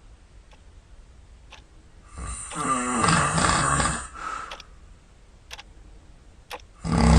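Loud snoring: one long snore about two seconds in, a quiet pause with a few faint ticks, then the next snore starting near the end.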